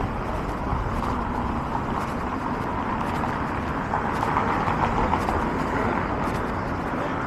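City street traffic: a steady noise of cars running on the road beside the sidewalk.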